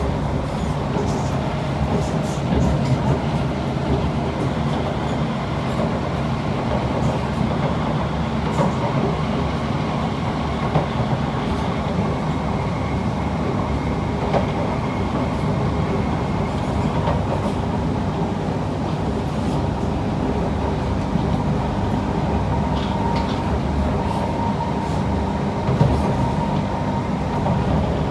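Kawasaki C151 metro train running along the track, heard from inside the carriage: a steady rumble of wheels and running gear, with a faint high whine at times.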